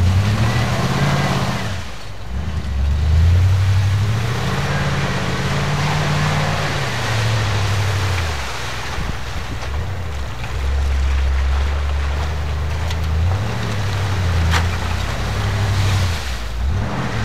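Jeep Wagoneer's engine revving up and down repeatedly as the truck churns through an ice-covered water pit. There is a sharp knock near the end.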